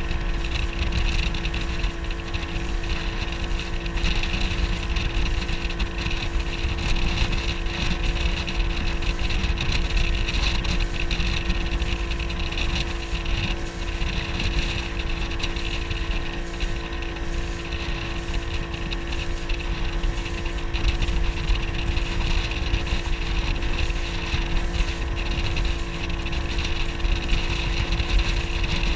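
Motorboat engine running at a steady pitch while under way, with wind rumbling on the microphone.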